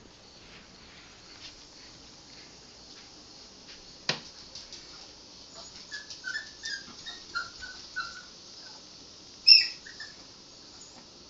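Chihuahua whining in a run of short, high, falling yips, then one louder, sharper yelp near the end, fixated on the household cat it is obsessed with.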